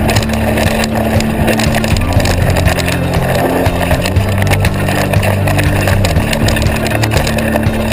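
Downhill mountain bike running fast over a rough dirt trail: wind rushing over the bike-mounted microphone, with the tyres and a constant rattle of the bike over bumps.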